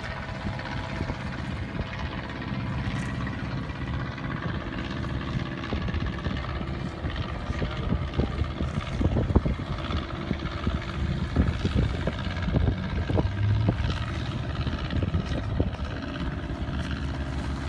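Motorboat engines droning steadily as boats run through the inlet, a low rumbling hum that holds its pitch.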